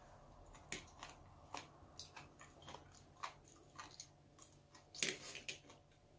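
Close-miked eating sounds: a person chewing, with irregular small wet clicks and crunches a few times a second and a louder burst of chewing about five seconds in.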